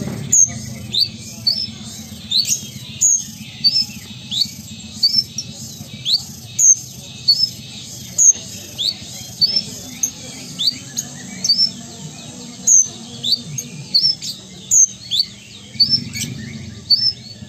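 Male kolibri ninja (Van Hasselt's sunbird) singing: a rapid, unbroken string of short, high, upward-sweeping chirps, about two strong notes a second.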